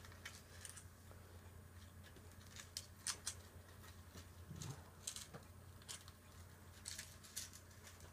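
Faint scattered clicks and crinkles of the cuckoo clock's chains being unwrapped from their packaging by hand, over a low steady hum.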